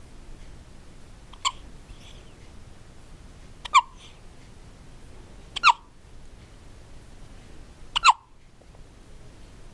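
Newborn baby hiccuping: four short, high, squeaky hics about two seconds apart, the first one fainter.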